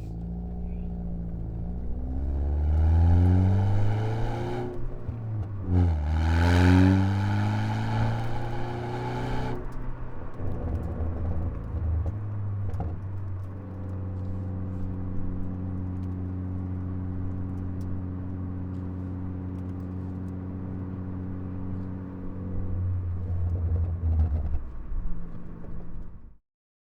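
Ford Focus ST engine revved twice, each rev climbing and then falling back. It runs through a muffler-deleted exhaust with the stock cat and resonator, and a Stratified pops-and-crackles tune makes the exhaust crackle and pop as the throttle closes. It then settles to a steady idle, with a few uneven blips near the end.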